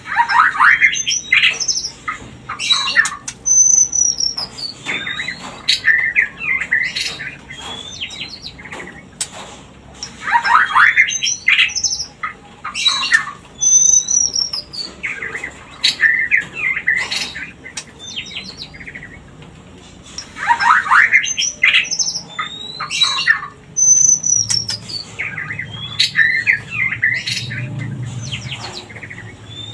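White-rumped shama (murai batu) calling: harsh chattering, sharp clicks and short falling whistles in a burst of a few seconds that repeats in much the same form about every ten seconds. This is a breeding lure call meant to bring shamas into mating condition.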